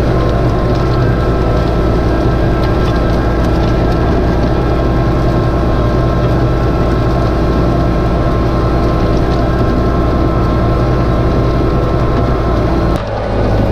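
John Deere tractor's four-cylinder turbo diesel engine running steadily under load while pulling a cultivator, heard from inside the cab. The sound briefly dips near the end.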